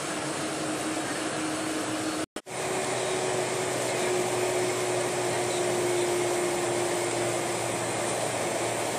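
Steady cabin noise of a Boeing 747-400 taxiing, its General Electric CF6-80C2 engines running at low thrust: an even rushing hum with a steady whine over it. The sound drops out for a moment about two seconds in.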